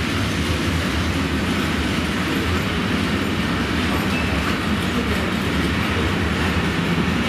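A long freight train of covered wagons passing through, its wheels running on the rails in a steady, unbroken rolling noise.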